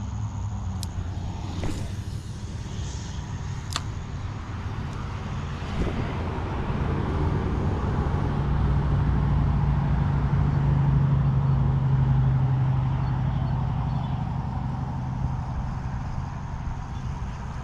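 A motor vehicle passing: a low engine hum that swells to its loudest about two-thirds of the way through, then fades away over a steady low rumble.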